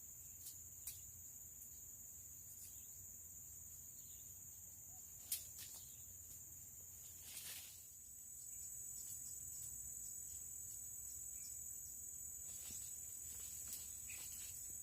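A steady, high-pitched chorus of insects chirring, with two brief knocks about five and seven and a half seconds in.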